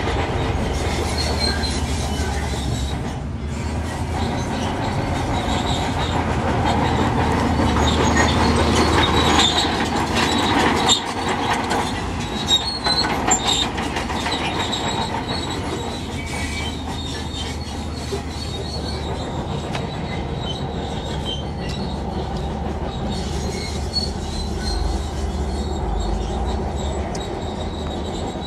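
Diesel earthmoving machinery working: a steady engine hum under metallic squealing and clanking, with a few sharp knocks about halfway through.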